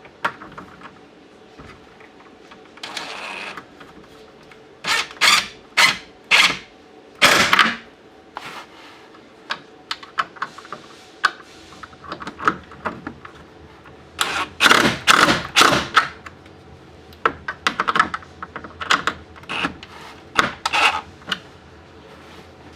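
Irregular clicking and clattering in short bursts with pauses between, from screws and hand tools being worked into a plastic front bumper lip.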